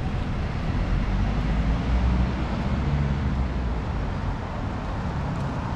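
Street traffic: a motor vehicle's engine passing close, its low rumble loudest about two to three seconds in, over steady road noise.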